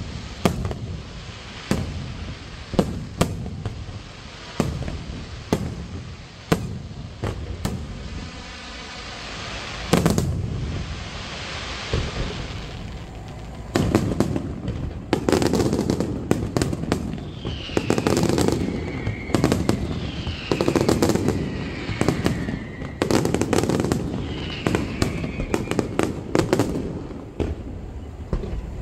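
Aerial firework shells bursting in a professional display: a steady run of sharp bangs, one big bang about ten seconds in, then from about fourteen seconds a denser barrage of bangs and crackle with several falling whistles.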